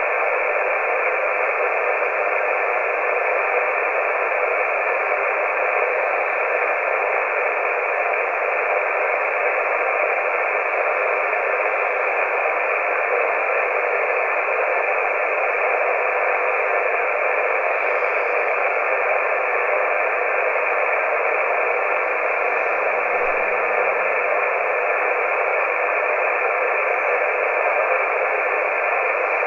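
Steady static hiss from a CB radio receiver tuned to the 27 MHz band, with no station coming through.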